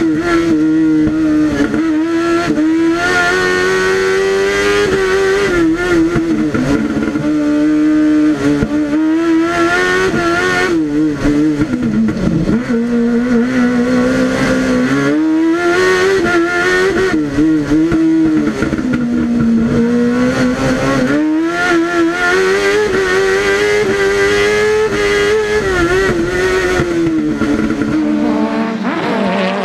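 Kawasaki ZX10-R 1000cc inline-four superbike engine in a Fiat Cinquecento Proto P2 race car, heard from inside the cockpit at race pace. It revs hard up and down without a break, rising and falling in pitch, and dips to a deeper note twice in the middle before climbing again.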